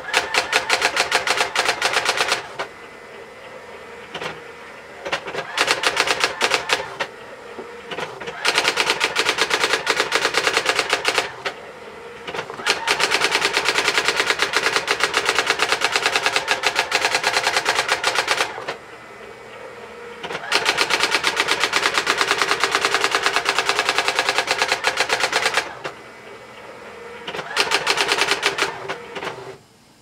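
Brother ML300 electronic daisy-wheel typewriter printing its demo page by itself: six rapid runs of print-hammer strikes, one burst per line, with short, quieter gaps between them as the machine moves on to the next line.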